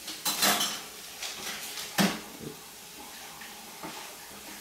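A yogurt cup and spoon knocking against a plastic high-chair tray: a quick clatter of knocks just after the start, a sharp knock about two seconds in, then a few lighter taps.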